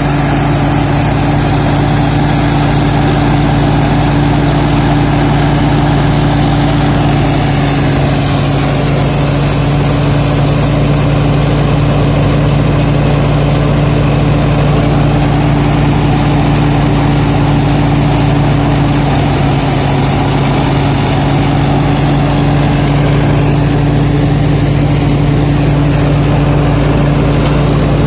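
Combine harvester engine running steadily at a constant speed, a loud even drone with a strong low hum.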